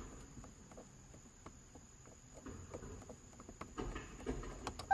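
Faint scattered clicks and soft rustling of handling, over a steady high-pitched whine.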